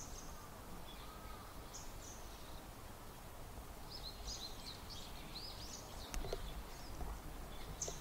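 Common kingfishers calling with short, high-pitched notes: a few single calls, then a rapid run of them in the middle. A steady low background noise lies underneath, and there is a single sharp click near the end.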